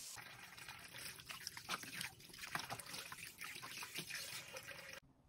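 Tap water running into a bowl while hands rub and rinse raw chicken pieces, with irregular splashing and sloshing. It cuts off suddenly near the end.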